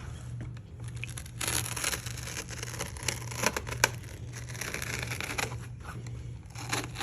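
Layered Kaizen foam being cut and torn out by hand to deepen a tool cutout: irregular tearing, scraping and crinkling with a few sharp clicks, starting about a second and a half in.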